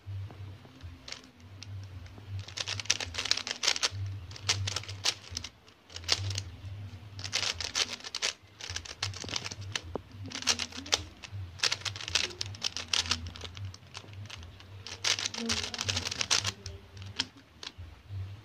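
Stickerless plastic 3x3 puzzle cube being turned quickly by hand: rapid runs of plastic clicks as the layers snap round, in bursts of a second or two with short pauses between.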